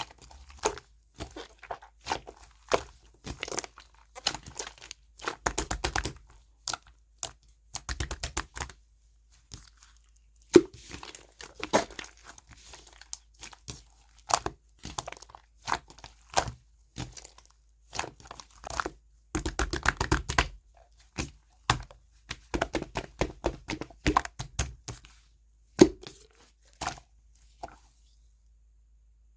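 Hands squishing, poking and stretching pink-and-blue mixed slime topped with a whipped-cream texture, giving irregular bursts of crackling and popping clicks with short pauses between them. The sounds stop shortly before the end.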